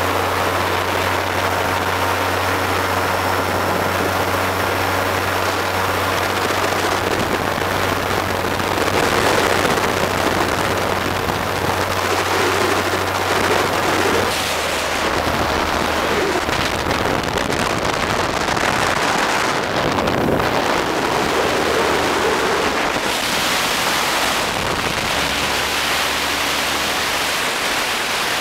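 Wind buffeting the microphone over the steady low drone of a motorboat engine. The drone shifts in pitch about halfway through.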